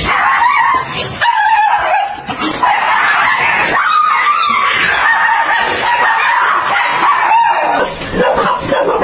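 A dog and a cat fighting: loud, high-pitched animal cries and dog yelps that keep on almost without a break. There are short dips about one and two seconds in.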